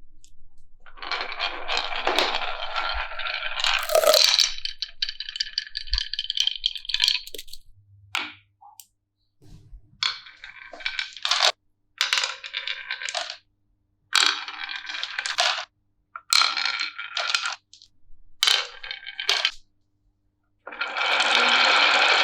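Marbles rolling and rattling along rain-gutter and wooden-rail marble-run tracks. There is a long rattling run, then several separate stretches of a second or two each that cut off sharply, and a louder steady rolling near the end.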